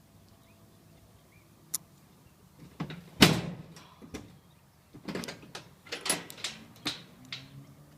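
Metal clicks, a loud clunk and a run of rattling knocks from a rusty fake-brass padlock and the hasp of a wooden shed door being worked by hand. There is a single sharp click, then the loudest clunk about three seconds in, then a string of lighter knocks.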